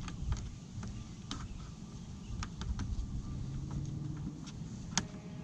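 Light clicks and taps of a plastic licence plate bracket being handled and pressed against a car's front bumper, with one sharper click about five seconds in, over a steady low rumble.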